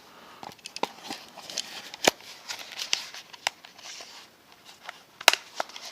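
Leatherman Super Tool 300 multi-tool being slipped into its belt pouch: rustling and scattered light clicks of metal and fabric handling, with two sharp clicks, one about two seconds in and one near the end.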